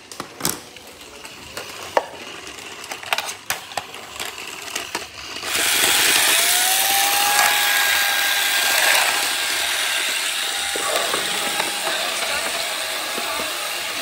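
A few clicks and knocks, then about five seconds in a robot vacuum starts up with a sudden loud rush from its suction fan and brushes. A motor whine rises in pitch, then holds steady as the vacuum keeps running.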